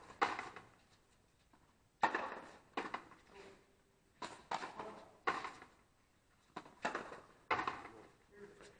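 Frontenis rally: a rubber ball struck with stringed rackets and smacking off the fronton wall, about nine sharp cracks at irregular intervals, some in quick pairs, each followed by a short echo.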